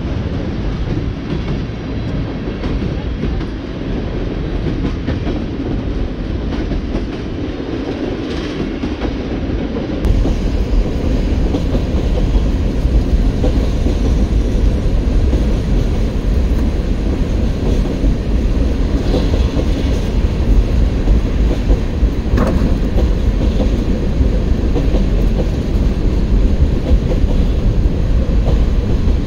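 Freight train of boxcars and tank cars rolling past close by: a steady, loud rumble of the rail cars on the track.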